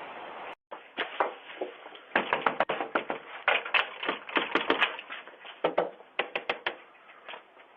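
Rapid, irregular tapping in quick clusters of sharp strikes, starting about a second in and stopping shortly before the end, heard through a doorbell camera's thin, narrow-band microphone.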